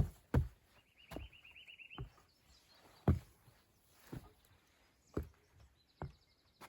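A small bird's rapid trill of high repeated notes, heard twice: about a second in and again near the end. Under it is a series of dull thumps, about one a second.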